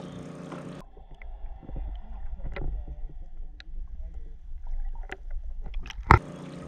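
Muffled underwater sound through a submerged action camera: a low rumble of water moving around the housing, with scattered faint ticks and clicks and nothing in the upper register. About six seconds in, a single sharp, very loud knock cuts through, and the sound returns to boat-deck ambience with a steady hum.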